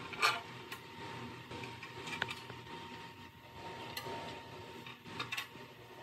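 Scattered small clicks and clinks of hand tools and a tool tray while a cutoff saw's blade guard is handled and fitted, the sharpest clatter about a quarter second in, over a faint steady hum.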